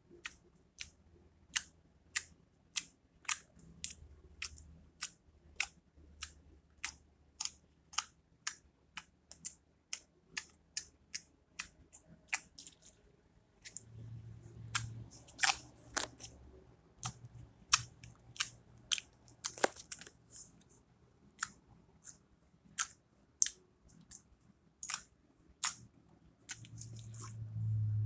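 Slime being squeezed and poked, giving sharp little clicking pops about twice a second, with a faint low hum swelling in twice.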